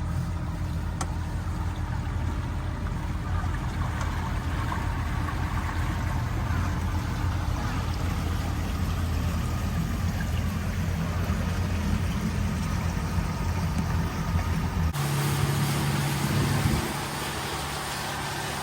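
A boat engine running at a steady low hum. About fifteen seconds in the sound changes suddenly to a different, slightly quieter hum.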